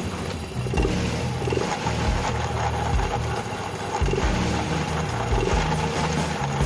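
Yamaha Mio M3 125 scooter's single-cylinder engine running steadily with the CVT cover off, its drive belt and pulleys spinning. The noise is typical, as the mechanic suspects, of final-drive reduction gears and bearings that could be ruined by water getting into the gearbox.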